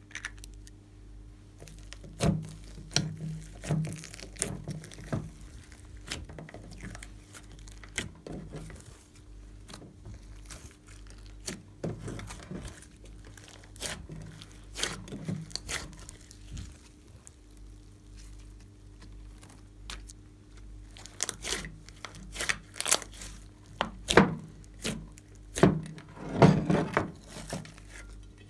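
Hands squeezing, stretching and kneading a large mass of mixed glossy slime in a glass dish: irregular sticky pops, crackles and squelches, loudest and most frequent in the last few seconds. A faint steady hum lies underneath.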